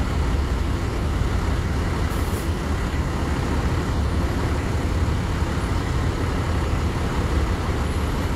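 Large intercity coach's diesel engine running at low revs as the bus creeps forward, a steady low rumble. A brief faint hiss comes about two seconds in.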